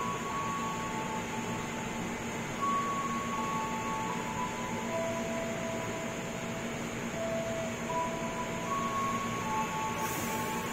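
Steady hum of a KRL electric commuter train standing at the platform with its equipment running: a constant low drone under a noisy haze, with several held tones at shifting pitches. A short hiss comes near the end.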